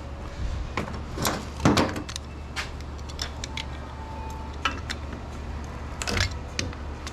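Scattered clinks and knocks of metal parts and hardware being handled while electrical switchgear is taken apart, over a steady low hum.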